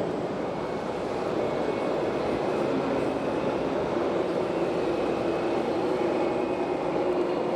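Radio-controlled scale trucks and construction machines running: a steady engine-like drone with faint whining tones and no breaks.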